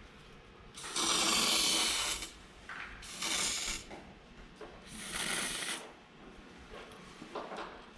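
Aerosol can of internal frame coating spraying through a long wand nozzle in three hissing bursts: the first about a second and a half long, the next two shorter.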